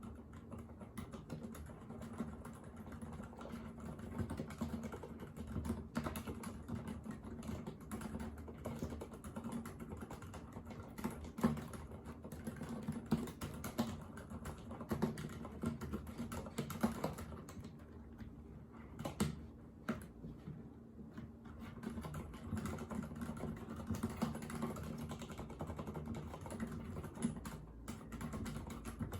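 Continuous typing on a Thinkway Tochetti mechanical keyboard with silent red linear switches: a steady run of keystrokes.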